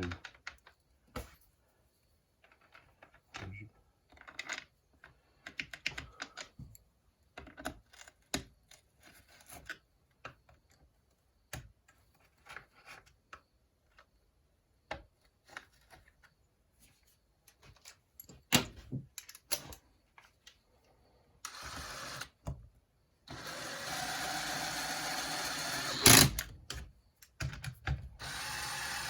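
Small metal parts and hand tools clicking and knocking on a workbench while a chainsaw is reassembled, then a power tool running steadily in a few long runs, with a sharp click about 26 seconds in.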